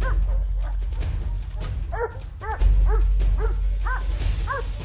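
Beagle harriers yelping at a cornered wild boar: short, high-pitched cries that rise and fall, repeated about two or three times a second and mostly from about two seconds in. A low, steady music bed runs underneath.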